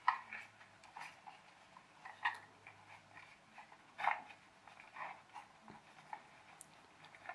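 Faint handling sounds, a few short clicks and rustles, as fingers hook a rubber band around the front axle of a plastic toy truck.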